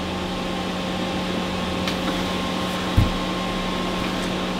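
Steady hum and hiss of bench test equipment, most likely its cooling fans, with faint constant whining tones. There is a single click about three seconds in.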